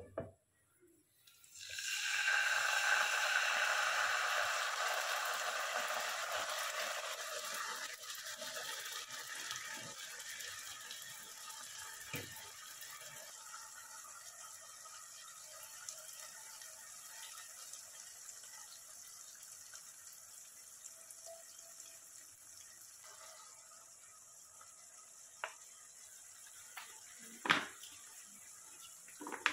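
Chipotle sauce sizzling as it hits spices in a hot nonstick wok, starting suddenly about a second and a half in, then slowly dying down. A few sharp knocks near the end.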